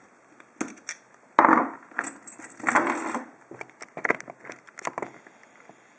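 Metal clicks and rattles of a Lockwood 301/63 padlock being handled as its core is worked out of the lock body. There are two louder scraping rattles, about one and a half and three seconds in.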